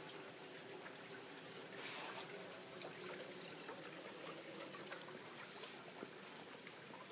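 Faint steady hiss of outdoor background noise, with a few soft clicks.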